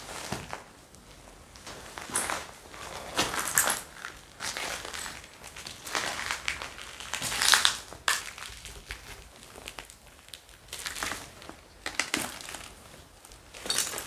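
Footsteps crunching over broken debris and plastic litter on a floor, irregular steps with crinkling and crackling, the loudest crunch about halfway through.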